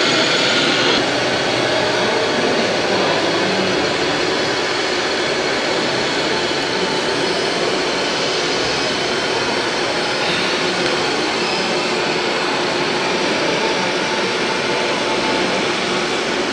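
Steady whirring and hiss of a radio-controlled crawler loader's electric motors, dipping slightly about a second in.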